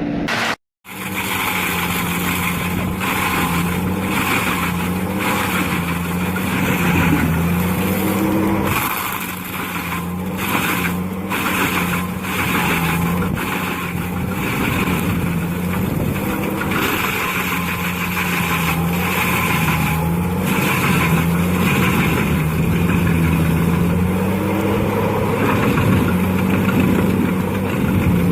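Heavy machine's diesel engine running steadily, its pitch wavering slightly with the load, with a series of sharp knocks and cracks over the first half.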